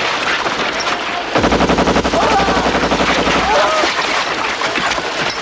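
A rapid burst of machine-gun fire lasting about two seconds, starting just over a second in, amid battle noise with men shouting.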